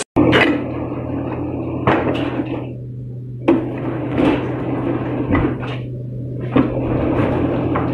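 Steel lever-and-hook mechanism of an industrial processing machine cycling, with heavy metal-on-metal clanks every second or two over a steady machine hum.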